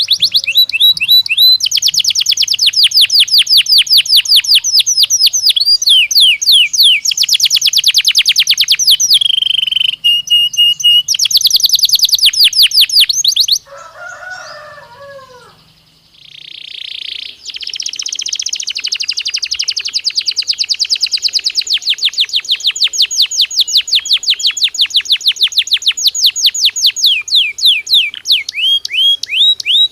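Belgian canary (domestic canary) singing long, fast, high-pitched trills of rapidly repeated notes. About halfway through the song breaks off for a few seconds, with a few lower, softer falling notes and one held buzzy note, then the fast trilling starts again.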